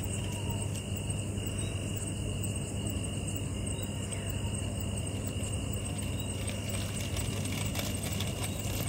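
Steady night-time outdoor ambience: a constant low hum under a steady high-pitched insect drone, with a few faint clicks.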